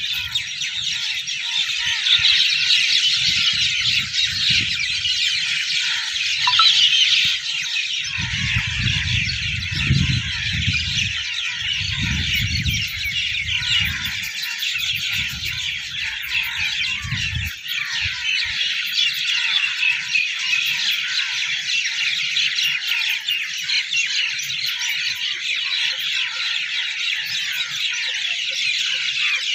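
Dense, steady high-pitched chorus of birds chirping over the fields. In the first half, between about 2 and 18 seconds in, low rumbles buffet the microphone.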